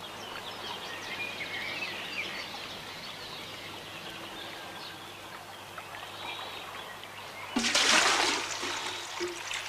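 Faint outdoor ambience with small birds chirping. About two-thirds of the way through, water is poured from a well bucket into a metal pail, a loud splashing rush of about a second.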